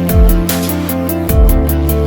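Background electronic music with a steady beat: deep kick drums twice and regular hi-hat ticks over sustained notes.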